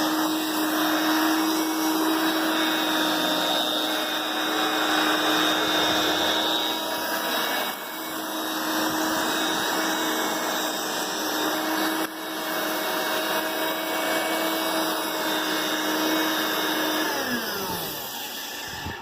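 Hoover Brush Vac hand vacuum running steadily, a constant motor whine over rushing air. Near the end it is switched off and the whine falls in pitch as the motor winds down.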